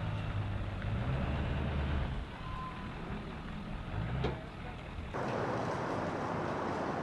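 Engine idling with a low, steady hum that drops away after about two seconds, then a single short beep. About five seconds in, the sound switches abruptly to a steady rush of noise.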